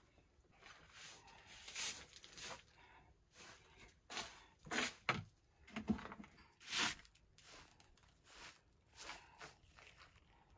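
Short hand broom of bundled dry stems sweeping a felt rug and the floor, a run of irregular brushing swishes, the strongest in the middle.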